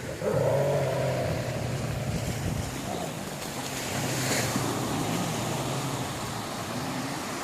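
A motor engine humming steadily, its pitch wavering in the first second or so, over the wash of waves on the shore.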